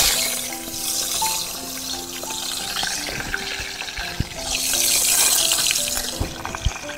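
Fish sizzling in hot oil in a small camping pot, the sizzle swelling about four and a half seconds in as more fish goes in, with a few light knocks against the pot. Gentle background music with sustained notes plays over it.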